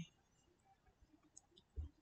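Near silence: room tone, with a faint click or two near the end.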